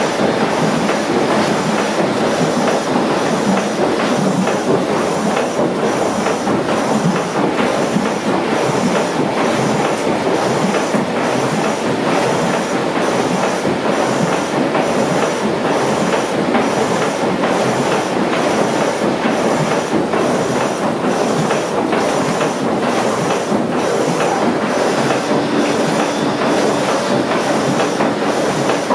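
Steam mill engine's condenser air pump at work: the vertical pump rod strokes up and down into the hot well while water churns and splashes, with a steady rhythmic clatter of the machinery.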